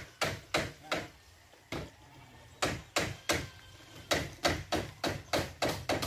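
Repeated sharp blows of a hand tool on wood, about three a second, with a short break about a second and a half in.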